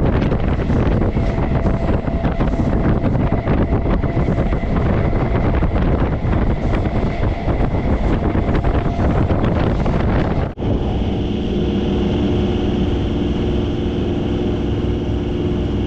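MEMU electric train running along the track, heard from inside the coach: a dense, loud rattle with a steady whine. About ten seconds in it breaks off suddenly, and a smoother running noise with a steady hum follows.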